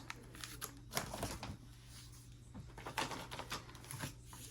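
Cardboard firework cake boxes being handled and set down: scattered light knocks and clicks with rustling of wrapping, over a steady low hum.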